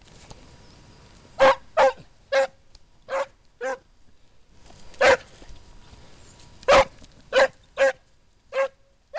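Scent hound giving tongue while working a hare's trail: about ten short, separate barks at irregular intervals.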